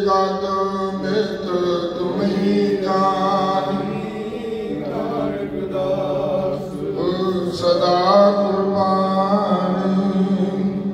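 Sikh hymn (Gurbani kirtan) sung in a slow, chant-like melody, with a steady low note held beneath the voice.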